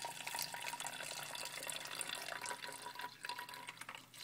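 Vinegar-and-water solution poured from a small plastic cup into an empty 2-litre plastic soda bottle: a steady trickle of liquid into the bottle that tapers off near the end.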